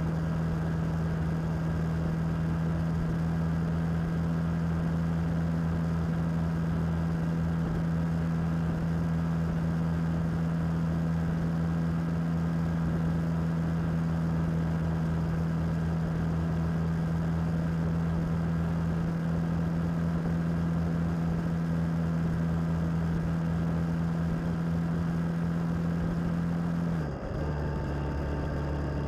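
Suzuki DL650's V-twin engine running steadily at cruising speed, with a constant rush of wind and road noise. Near the end the engine note dips briefly and settles at a lower pitch.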